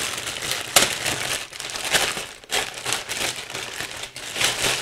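Packaging rustling and crinkling as the RC transmitter is pulled out of its box and unwrapped, with a run of small handling clicks and one sharper click about a second in.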